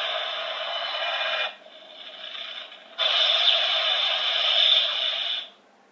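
Electronic sound effects played from a DX Kamen Rider Saber toy sword's speaker: a steady, noisy effect with a few held tones that breaks off about a second and a half in, goes quieter, then comes back louder about three seconds in and cuts off near the end.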